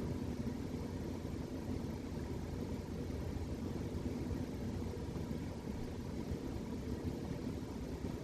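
A sleeping cat snoring close to the microphone: a steady low rumble.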